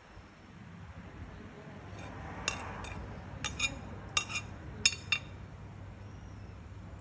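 A metal ladle clinking against a ceramic plate and a stainless-steel hot pot as raw beef slices are scraped into the broth. There are about half a dozen sharp, ringing clinks between about two and five seconds in.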